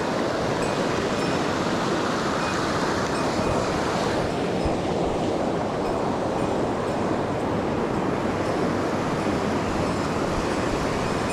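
A mountain stream rushing: a steady, even noise of fast-flowing water over rocks.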